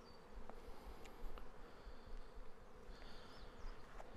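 Honeybees buzzing in flight around the hives: a faint, steady hum.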